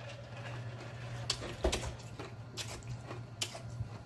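A person gulping a drink from a large glass mug close to the microphone: a handful of wet swallows and mouth clicks, spaced roughly a second apart.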